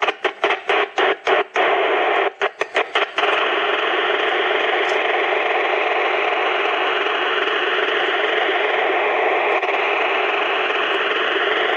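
Shortwave radio signal received on a home-built crystal radio set and played through speakers, which the uploader takes for a HAARP transmission. A noisy signal pulses on and off about four times a second, then about three seconds in gives way to a steady hiss.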